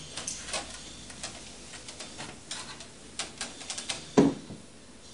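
Cats' claws scratching and clicking on a window screen as they climb it, a run of small scrapes and ticks, with one heavier thump about four seconds in.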